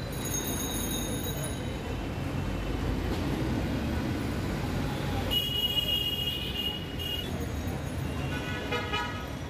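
Street traffic rumble with a vehicle horn sounding for about two seconds midway, then a run of short horn toots near the end.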